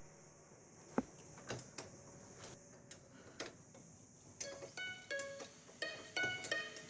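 Quiet background music: a few sharp clicks, then short plucked string notes from about four seconds in.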